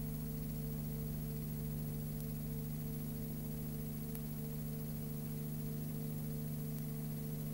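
Steady electrical hum with tape hiss and no sound from the scene itself, typical of a transfer of silent Super 8 cine film; a faint tone in the hum pulses about twice a second.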